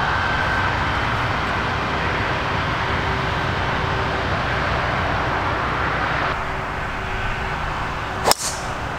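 A golf driver striking a teed ball: one sharp crack about eight seconds in, over a steady rushing outdoor background.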